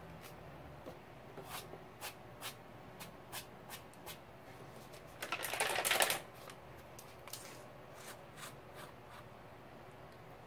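Handling noises from plastic paint squeeze bottles: scattered light clicks and taps, with a rustle lasting about a second just past the middle.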